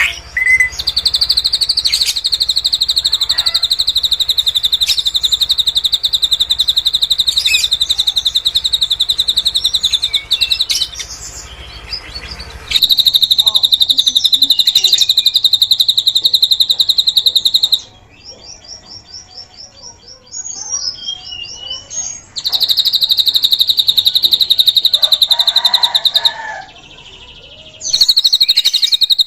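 A drongo (srigunting) singing cililin-style filler song, the kind used to tutor other cage birds. It sings loud, rapid, high trills held for several seconds at a time, broken by short softer pauses. One pause, about two-thirds through, holds a quick run of higher notes.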